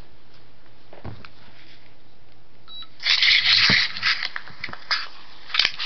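Printed paper pages being handled and turned by hand. A loud burst of rustling comes about three seconds in, followed by a series of paper crackles and crinkles.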